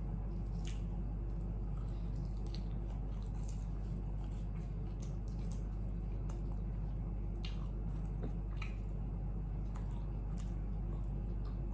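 Close-miked eating: chewing with small wet mouth clicks and smacks scattered through, over a steady low hum.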